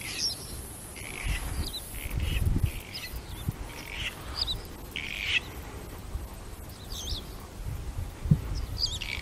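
Wild birds calling: a string of short, high calls and chirps, some sweeping up and down in pitch, over an intermittent low rumble.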